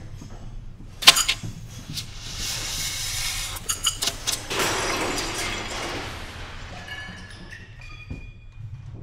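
Experimental electroacoustic improvisation: a sharp impact about a second in, then a swelling rush of hissing noise that fades away, with a few thin high tones near the end.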